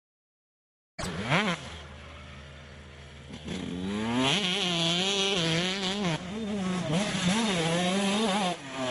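Silence for about a second, then a two-stroke motocross bike engine: a quick rev blip, a lower steady run, then from about three and a half seconds in the revs rise and fall again and again under throttle, with a short drop near the end.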